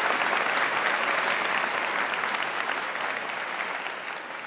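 Audience applauding, the clapping fading gradually.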